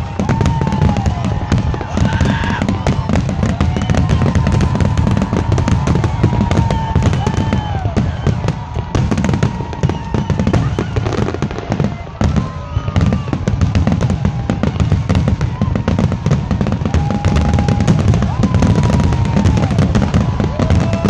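Aerial fireworks shells bursting in a rapid, continuous barrage: deep booms with crackling throughout, and whistles gliding up and down above them.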